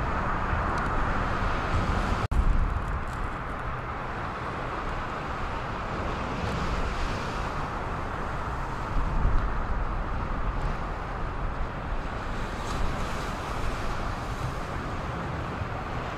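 Lake Michigan waves breaking and churning against shoreline rocks, with wind buffeting the microphone: a steady rushing noise that briefly cuts out about two seconds in.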